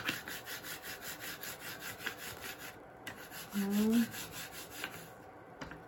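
Pop-up bait paste being rolled back and forth under the hands on a flat surface into a thin sausage: a quick, even rubbing of about seven strokes a second that pauses briefly about three seconds in, then resumes and fades near the end.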